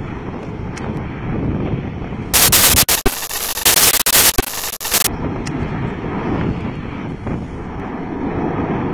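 Steady low rumbling roar of Masaya volcano's active lava lake, degassing and churning in the Santiago crater, with a few faint crackles. About two seconds in, a loud harsh hissing blast cuts in for about three seconds, broken by brief dropouts.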